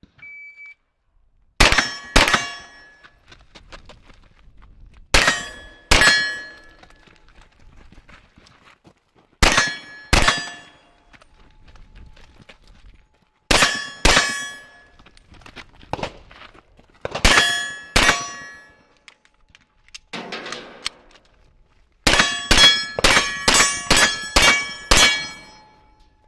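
CZ Scorpion EVO 3 firing: five pairs of shots about four seconds apart, then a fast string of about eight shots near the end, with steel targets ringing after the hits. A short high beep sounds just before the first shots.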